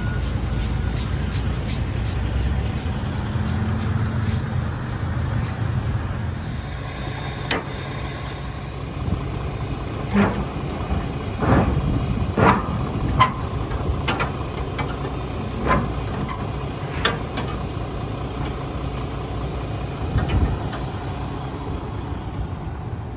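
A heavy engine running steadily, with a run of sharp knocks and clanks starting about a third of the way in and lasting around ten seconds.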